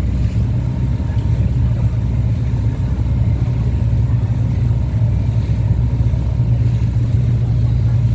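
Passenger boat's engine running steadily under way, a constant low drone with the rush of the hull through the water.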